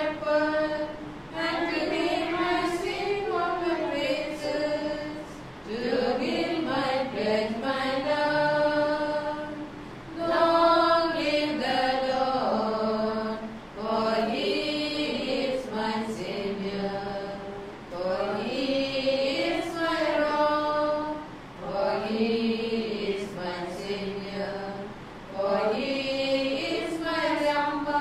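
A hymn sung in phrases of about four seconds, with short breaths between them.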